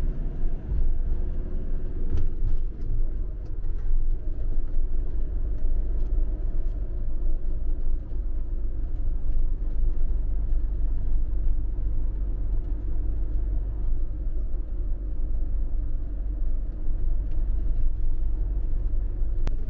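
Campervan driving along at steady speed: a constant low rumble of engine and road noise.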